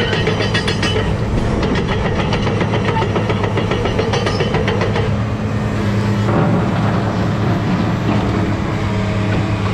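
New Holland E215 tracked excavator on the move: its diesel engine runs steadily under a rapid, even metallic clatter from the steel tracks. The clatter eases off about five seconds in, while the engine keeps running.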